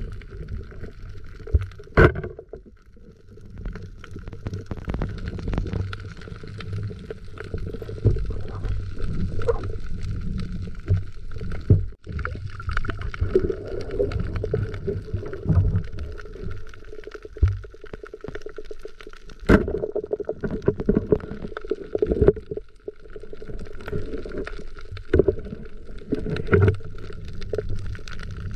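Underwater noise picked up by a camera below the surface: muffled, uneven sloshing and rumbling of moving water, with scattered knocks, the sharpest about two seconds in and again near twenty seconds.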